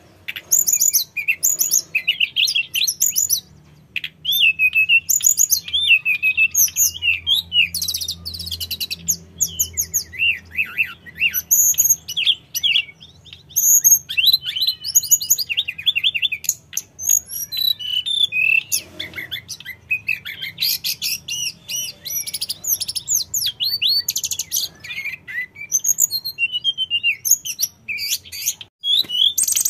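Male hill blue flycatcher (tledekan gunung) singing almost without pause: fast, varied phrases of high whistles, trills and rapid chattering notes, with one short break about four seconds in.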